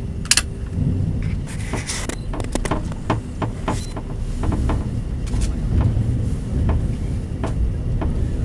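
Passenger train rolling slowly onto a train ferry's deck: a steady low rumble with irregular sharp clicks and clanks, thickest in the first few seconds and sparser after.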